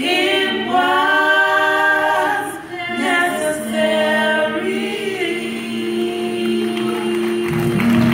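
A small group of women singing a gospel song in close harmony, closing on a long held note. Applause breaks in near the end.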